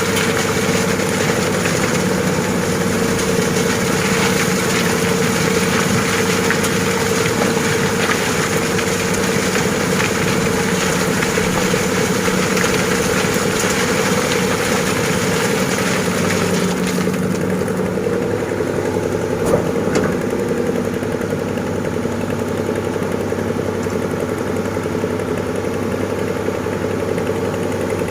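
Heavy diesel machinery engine running steadily under load. About two-thirds of the way through the higher-pitched noise drops away and the engine settles lower, followed shortly by a single sharp knock.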